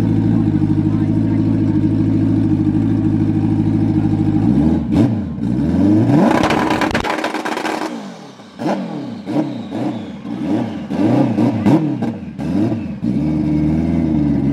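Turbocharged Suzuki GSX-R1000 K4 drag bike's inline-four engine idling steadily, then about four seconds in revved hard up to a very loud peak and let fall. A quick string of throttle blips with sharp cracks follows, and the engine settles back to a steady idle near the end.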